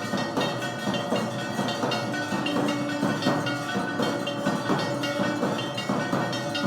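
Temple bells and percussion struck in a fast, even rhythm, about three or four strikes a second, with bells ringing on steadily underneath: the clangour of a Hindu aarti.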